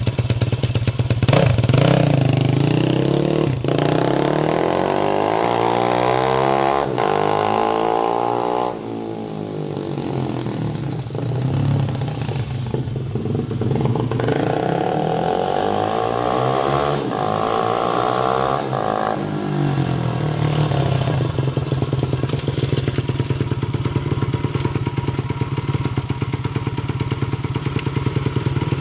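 Motorcycle engine running steadily, apparently the freshly assembled engine being test-run.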